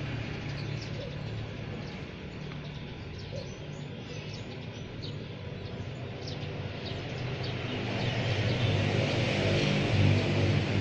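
Birds chirping in short, scattered high calls over a steady low engine-like hum that grows louder near the end.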